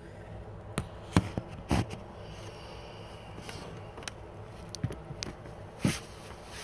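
Handling noise from a phone being moved and settled: a handful of short knocks and rubs on the microphone, scattered irregularly over a low steady room hum.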